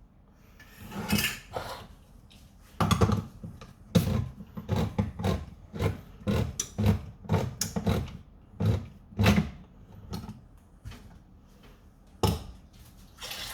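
Irregular knocks, clunks and scrapes of kitchen handling, as cans of green beans and utensils are moved about and set down on a counter.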